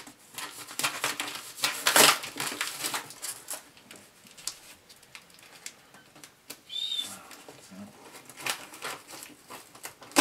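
Heavy cardboard shipping box being cut and pried open with scissors: irregular scraping, rustling and tearing of cardboard, loudest about two seconds in, then sparser.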